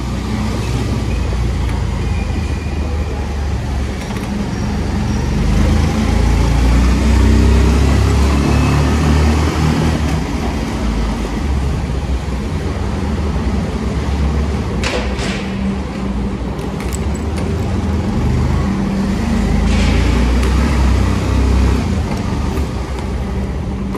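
Motorcycle engine running while riding, its pitch shifting with the throttle, under a steady rush of air and road noise.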